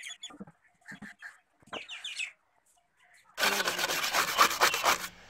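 A wire brush scrubbing stripper-softened paint off a metal fan blade in rapid back-and-forth strokes. It starts loudly about three and a half seconds in and stops about a second and a half later. Before it come a few short bird calls.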